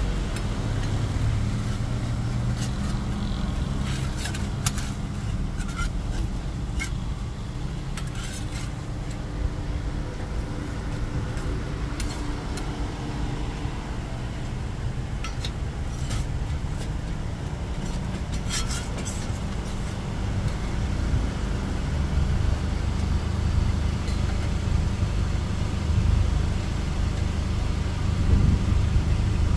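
Steady low rumble, like a nearby engine or traffic, that grows louder about two-thirds of the way through. Scattered sharp metallic clinks, like utensils against pans, cut across it.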